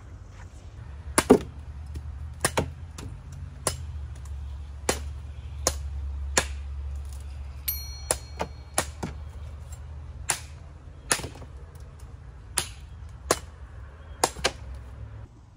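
Machete chopping into the husk of a young green coconut to open the top: about twenty sharp strikes, roughly one a second and unevenly spaced.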